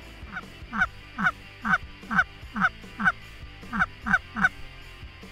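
Canada goose honking: a steady run of about ten close two-note honks, roughly two a second, each breaking from a high note down to a low one.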